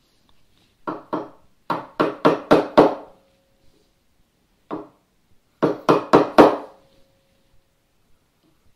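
Hammer striking a chisel set in a knife line across a pine 2x4 bench leg, deepening the knife wall for a crosscut. Quick runs of sharp taps, about four a second, in groups of two, five, one and five, with a brief ringing tone after each run of five.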